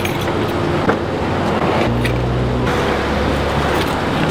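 Road traffic noise: a motor vehicle running close by, its low engine drone growing stronger for a couple of seconds in the middle, with one sharp click about a second in.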